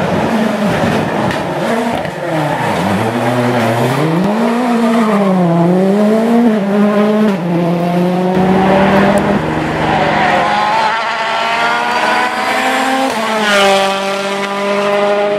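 World Rally Car's 1.6-litre turbocharged four-cylinder engine at full stage pace. Its pitch swings up and down as it brakes and accelerates, then climbs steadily with gear changes, one about halfway through and another near the end.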